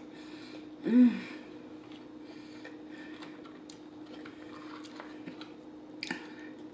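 Close-miked eating: quiet chewing of cheese fries, with a brief hummed "mm" of enjoyment about a second in and small clicks of a plastic fork picking fries from a paper tray.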